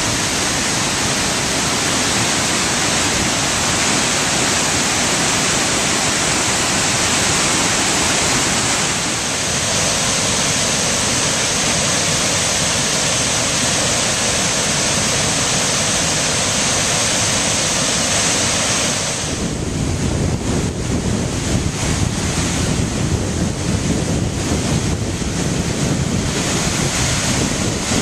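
Steady rush of a large waterfall, heard close by. The rush changes a little about a third of the way in. From about two-thirds of the way through, wind buffets the microphone in uneven low gusts over the water noise.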